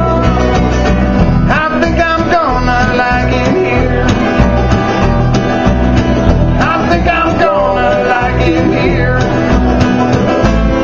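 Live acoustic bluegrass band playing: strummed acoustic guitar, mandolin and plucked upright bass.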